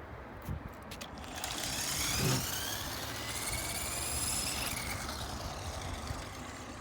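Toy remote-control monster truck's small electric motor whining as it drives, the pitch rising about a second and a half in and dropping away near the five-second mark as the truck stops. Its drive turns only one wheel, so it cannot climb the slope. A low thump a little over two seconds in.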